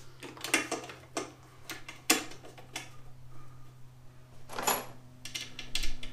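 Loose metal transmission parts clinking and rattling as they are handled and picked from a plastic parts bin: a string of irregular sharp clicks and clinks, one with a brief metallic ring a little after the middle. A steady low hum runs underneath.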